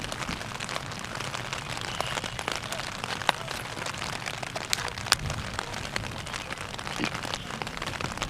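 Steady rain pattering, a dense run of fine drop ticks, with two sharper clicks about a third and two thirds of the way in.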